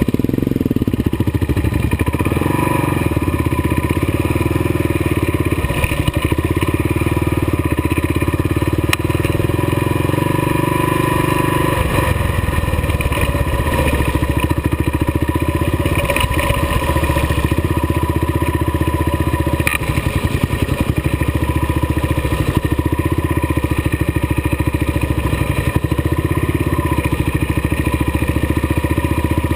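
Kawasaki KLR dual-sport motorcycle's single-cylinder engine running steadily under way on a rough dirt road, heard close from the bike itself, with a few sharp clatters over bumps.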